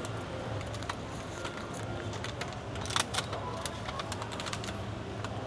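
Street-stall ambience: a steady low hum with scattered light clicks and clinks, the sharpest about three seconds in.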